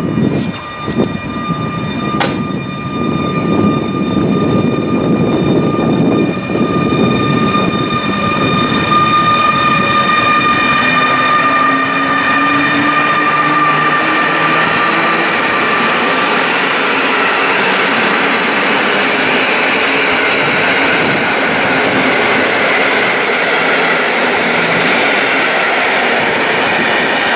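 A PKP Intercity EU160 Griffin electric locomotive pulling out with its passenger train, its electric traction whine rising in pitch as it gathers speed. Then the coaches roll past with steady wheel and rail noise. A sharp click comes about two seconds in.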